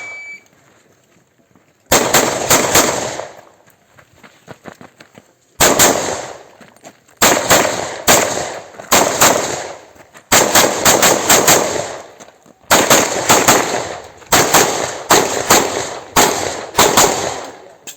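A shot timer beeps once, then about two seconds later a handgun opens fire. Rapid strings of shots follow in pairs and small groups with short pauses between, each shot with a ringing echo.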